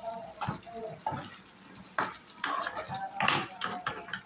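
Perforated metal spatula stirring a wet vegetable curry in a metal pan, with a run of scrapes and clinks against the pan, loudest after about two seconds.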